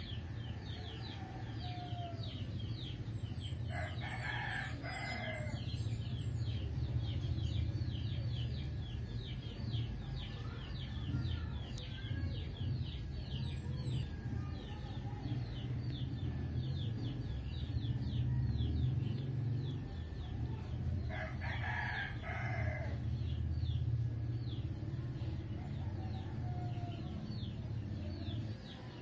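A rooster crowing twice, about 4 and 21 seconds in, over constant rapid high-pitched bird chirping and a low steady hum.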